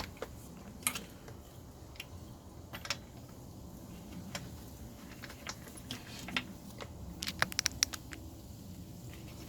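Scattered light clicks and taps from small objects being handled, with a quick run of about ten clicks a little past two-thirds of the way through.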